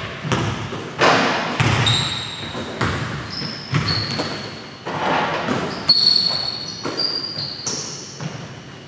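Basketballs bouncing on a hardwood gym floor, about one impact a second, with short high sneaker squeaks between them, all echoing in a large gym.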